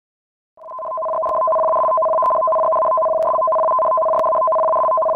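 Electronic alert tone: two steady pitches sounded together, fading in about half a second in and held unbroken, sounding the tsunami warning.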